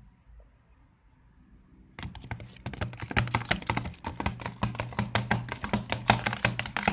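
Slime mixture with shaving foam being stirred in a pot: after a near-silent start, a fast, continuous run of sticky clicks and taps begins about two seconds in.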